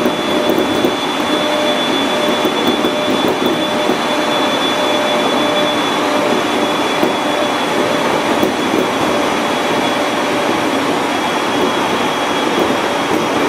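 701-series electric train running along the line, heard from inside at the front: a steady rumble of wheels on rail with a constant thin high whine over it.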